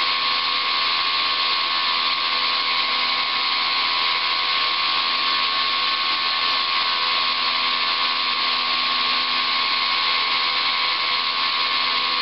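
Brushless electric motor of a ParkZone Super Decathlon RC plane spinning a Master Airscrew 8x6 three-blade propeller at high throttle on a static bench run, the plane held in place. A steady whine over the rush of the prop's air, holding at one speed throughout.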